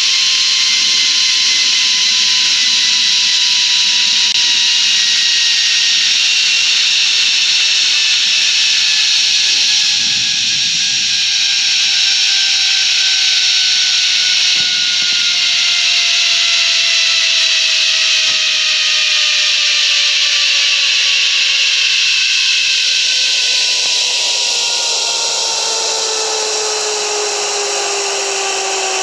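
Zipline trolley pulleys running along the steel cable at speed: a steady rushing hiss with several whining tones that fall slowly in pitch as the trolley slows.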